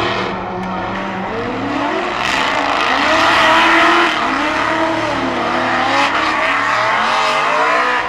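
A drift car's engine revving up and down in repeated waves while its tyres squeal in a slide, the tyre noise growing strong about two seconds in.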